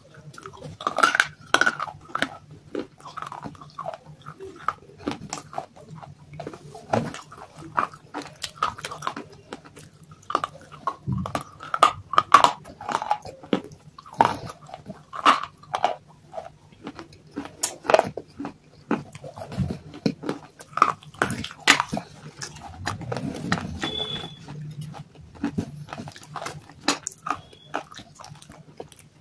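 Crunching and chewing of dry clay chunks: many sharp, irregular crunches as the pieces are bitten and ground between the teeth.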